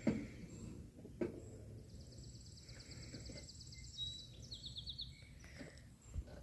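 A small bird's rapid, high trill starting about two seconds in and lasting a couple of seconds, ending in a slightly lower burst. It sounds over a low steady rumble, with a few short knocks.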